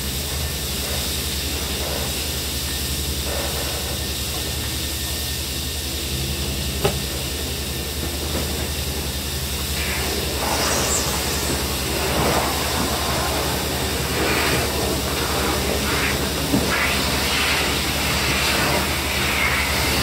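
Industrial vacuum hose sucking up spent blasting sand, a steady rushing hiss over a low machine hum, with louder irregular rushes in the second half as more sand is drawn in.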